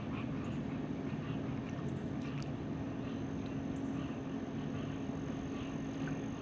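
A steady low mechanical hum over a constant hiss, with faint chirping calls repeating a few times a second in the background.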